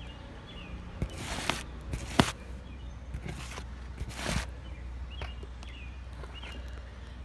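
Outdoor ambience: a steady low wind rumble, faint short bird chirps now and then, and three brief rustling swishes with a sharp click just after the second.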